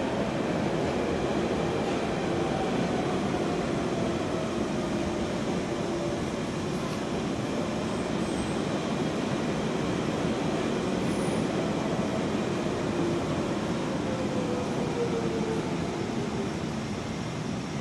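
London Underground Central line 1992 Stock train running slowly alongside the platform. It makes a steady rumble with a faint motor whine that falls slowly in pitch as the train slows.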